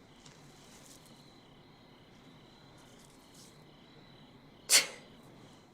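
Faint chirping of crickets, a steady high pulsing chirr, broken near the end by one loud, brief sound that fades over about half a second.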